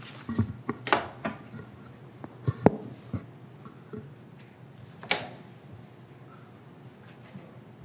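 Scattered clicks, taps and knocks of objects being handled at a desk near a microphone, the loudest a sharp knock about two and a half seconds in and another about five seconds in. After that there is only quiet room tone with a low hum.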